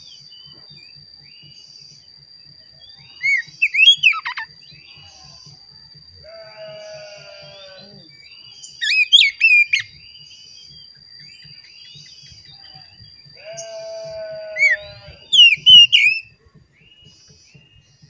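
Oriental magpie-robin (kacer) singing. It gives three loud bursts of quick, sliding whistled notes about five seconds apart, and two of them open with a lower drawn-out note. A thin steady high tone runs beneath until near the end.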